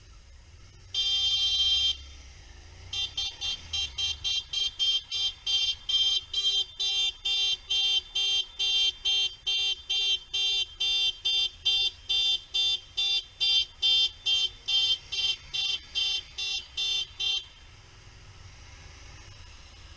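Vehicle horn: one long blast, then a steady train of short toots at about two a second for some fifteen seconds, which stops abruptly. A low engine rumble runs underneath.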